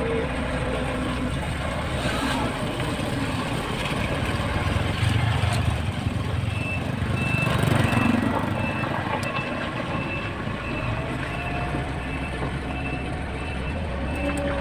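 Motor grader's diesel engine running under load, swelling louder about halfway through. From about halfway a reversing alarm beeps steadily, a little more than once a second, as the grader backs up.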